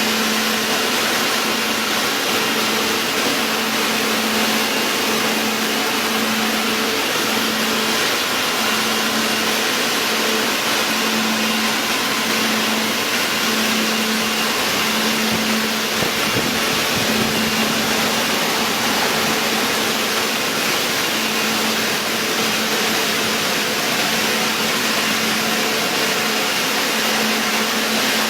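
A machine running steadily with a loud, even hiss and a low hum that swells and fades about once a second.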